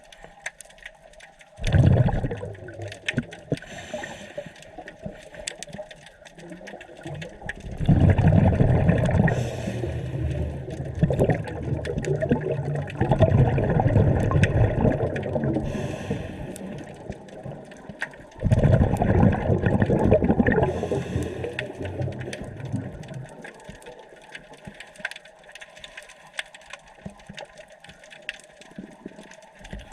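Scuba diver's exhaled bubbles rushing out of the regulator, heard underwater, in several long bubbling bursts that start suddenly and fade over a few seconds, with a steady fine crackle underneath.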